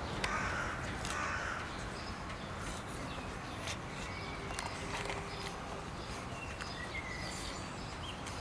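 Steady outdoor background noise with a few short bird chirps, and several faint crisp crunches from a person biting into a raw apple.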